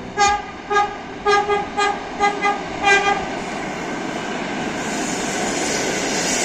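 EP2D electric commuter train sounding a string of short horn toots, about eight in three seconds, then the rushing noise of the train running past on the rails, growing louder toward the end.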